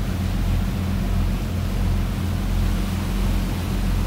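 A cruise boat's engine running steadily with a low drone, over the rush of the churning wake.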